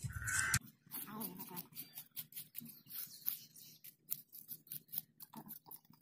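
Metal spoons scraping and digging through coarse, shelly beach sand: many short, quiet scrapes and clicks at an uneven pace.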